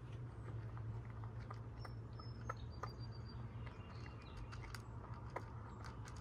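A cat eating from a bowl, chewing with small irregular clicks of teeth and food.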